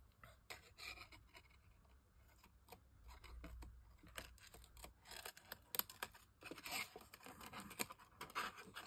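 Small craft scissors snipping along the edge of a white cardstock tag, trimming it down in a run of short, faint snips. The snips come more often in the second half.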